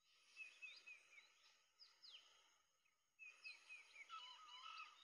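Faint bird chirping: two quick runs of short, high, falling notes, the second run near the end fuller, with lower notes mixed in.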